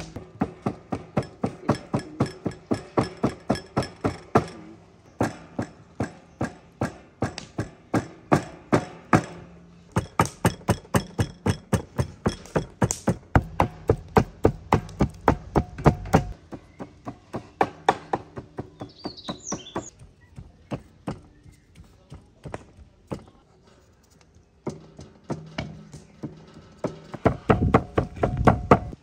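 Raw beef being chopped into mince on a thick wooden board with a large knife and a curved cleaver: even, rapid strikes of the blade through the meat into the wood, about three a second, with a few short pauses.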